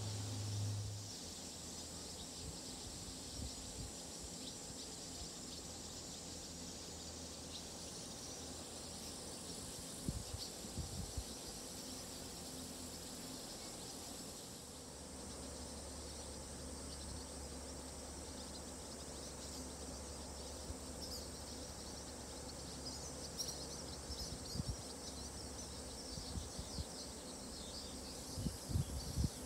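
Summer evening insect chorus: a steady high shrill drone with many short high chirps, thickest in the second half, and a few soft low bumps.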